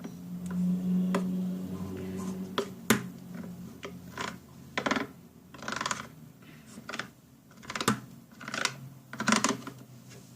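A spoon clicking and scraping against a plastic cup in short, irregular taps while a slime mixture is stirred. A low steady hum runs under the first few seconds.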